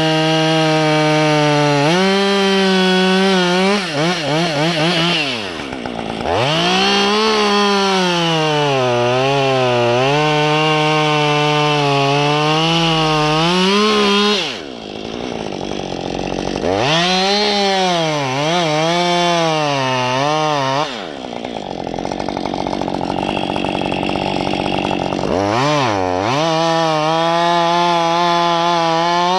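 Husqvarna 550 XP two-stroke chainsaw running at high revs while cutting spruce limbs. Its engine note sags as the chain bites into each cut and climbs again, with a few brief lulls between cuts.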